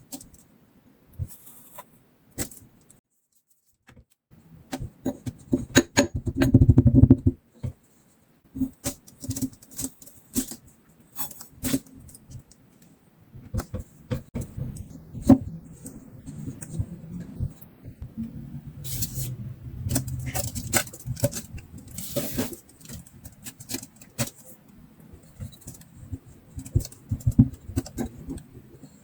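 Kinetic sand being handled close to the microphone: irregular runs of soft crackles and crunches as it is cut and squished, with two short silent pauses early on.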